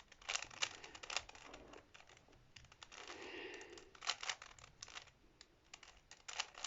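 A plastic Rubik's cube being turned by hand: its layers click and clack in quick, irregular strokes.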